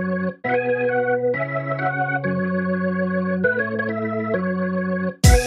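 Background music: sustained organ-like keyboard chords changing about once a second, with a drum beat starting just before the end.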